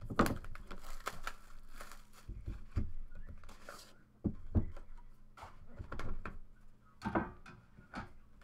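Hands handling and opening a black trading-card hobby box on a table: irregular rubbing, scraping and knocks, with a louder thump about four and a half seconds in.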